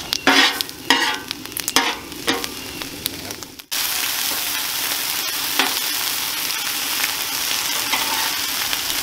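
A metal spatula scrapes and taps across a Blackstone steel griddle while scrambling eggs, over a light frying sizzle. A little under four seconds in, the sound cuts suddenly to a loud, steady sizzle of turkey bacon strips frying on the griddle.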